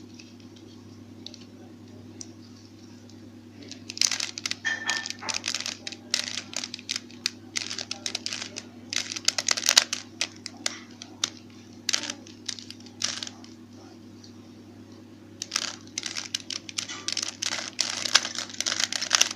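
Plastic Rubik's cube being twisted by hand: runs of fast clicking and clacking as the layers turn, with short pauses between runs. A steady low hum sits underneath.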